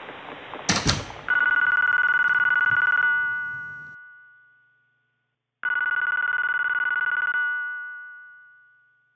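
A flip phone ringing with a trilling, telephone-style ringtone: two rings about two seconds long with a pause between. A sharp click comes just before the first ring.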